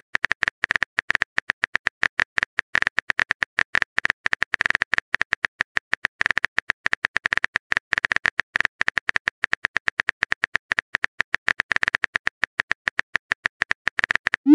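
Rapid, irregular clicking of a phone-keyboard typing sound effect, several taps a second with brief pauses. Near the end a short rising tone begins.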